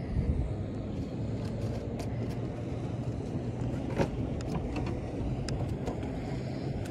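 Steady low rumble with scattered sharp clicks and knocks from the phone being handled at close range, the loudest about four seconds in as a finger brushes over it.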